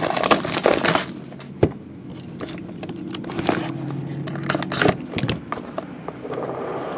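Plastic shrink wrap crinkling as it is pulled off a cardboard trading-card box, loudest in the first second. After that come scattered taps and knocks as the box is turned over and handled.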